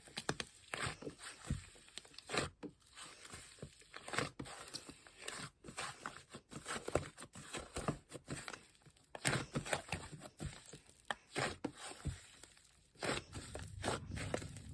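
Slime being squished, stretched and poked by hand, giving irregular sticky pops, clicks and crackles.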